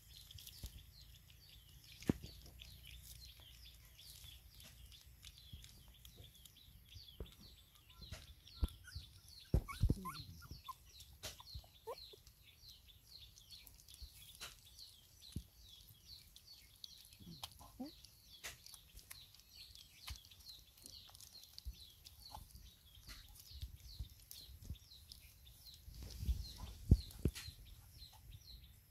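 Puppies eating from a bowl, with small scattered clicks and knocks, against continuous rapid high-pitched bird chirping; a few short animal calls stand out about ten and seventeen seconds in.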